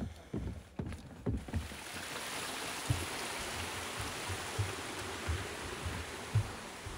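Creek water rushing over rocks, an even hiss that swells in about a second and a half in, with footsteps thudding on a wooden boardwalk roughly every two-thirds of a second.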